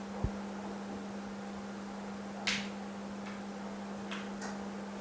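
A steady low hum runs throughout. Over it come small handling sounds of a cracked phone screen assembly: a soft knock just after the start, a brief rustle about halfway, and a couple of faint ticks near the end.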